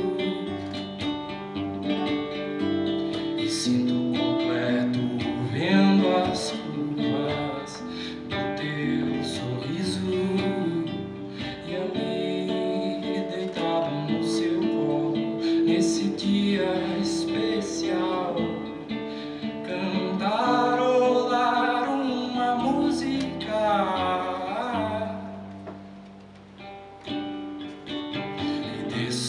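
A song performed live: acoustic guitar strummed and plucked, with a voice singing over it. The music drops briefly in level near the end before picking up again.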